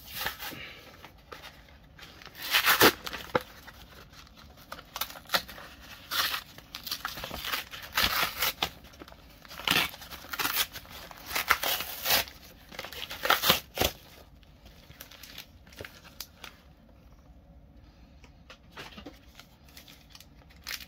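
A sheet of white packing paper being handled, crinkling and tearing in a run of short rustling bursts that thin out to faint handling sounds after about fourteen seconds.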